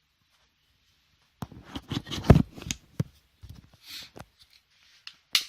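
Glock 26 pistol and its magazine being handled: a run of plastic-and-metal clicks and clatter, then one sharp click near the end as the magazine is pushed into the grip.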